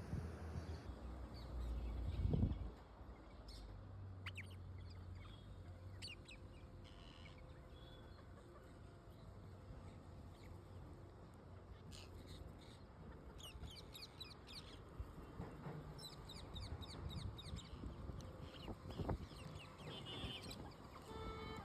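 Birds calling in short, sharp chirps scattered throughout, with a quick run of calls in the middle. There is a brief low rumble about two seconds in.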